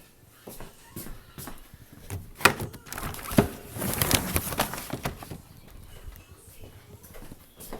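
Household handling noises: two sharp clacks about two and a half and three and a half seconds in, then a couple of seconds of scraping and rustling, among lighter scattered knocks.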